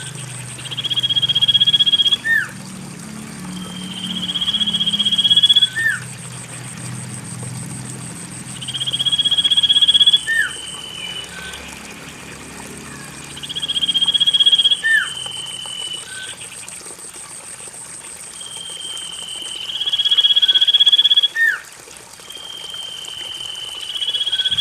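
Common iora (cipoh) song used as a lure: a drawn-out whistled trill that swells in loudness for about a second and a half and ends with a sharp slurred note, repeated about every four to five seconds. A steady, fast, high pulsing buzz runs underneath.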